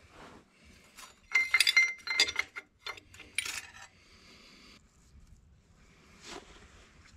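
Steel carrier bearing cups and shims clinking against each other and the cast-iron Dana 30 differential housing as they are lifted out by hand. Several light metallic clinks fall in the first half, and a fainter one comes near the end.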